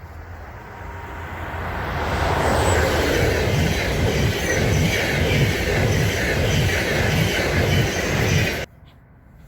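Swiss electric regional train passing close by, growing louder over the first two seconds, with a rhythmic clatter of wheels on the rails about twice a second. The sound cuts off suddenly near the end.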